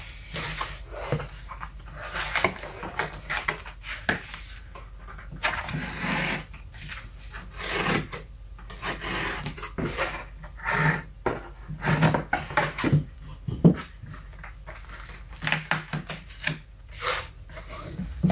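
Cardboard comic-book mailer being opened by hand: stiff cardboard flaps unfolded, scraping and rubbing in irregular bursts, with occasional short knocks.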